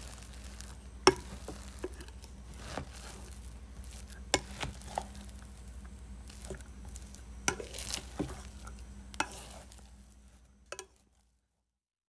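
Close-miked eating sounds: chewing and mouth noises with sharp clicks and taps every second or so, over a steady low hum. The sound fades away and cuts to silence near the end.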